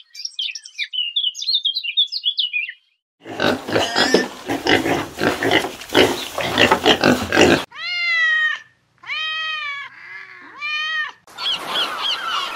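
Pigs grunting, with piglets suckling at a sow, make up the loudest stretch in the middle. Before it come high, thin chirps. After it come three clear calls, each rising and falling in pitch, then a noisy stretch with quick high chirps repeated over it.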